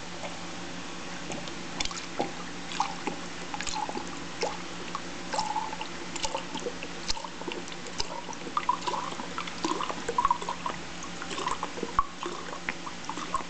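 Water poured from a bottle into a glass tumbler, trickling and splashing with many small, irregular drips.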